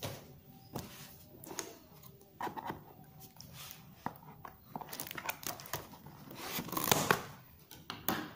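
Scissors cutting the packing tape on a small cardboard box, with clicks, taps and rustling as hands handle the box. The loudest part is a short tearing rasp near the end.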